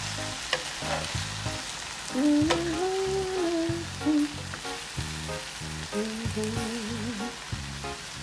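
Bitter gourd and eggs sizzling in a frying pan, with a few sharp clicks of a utensil against the pan.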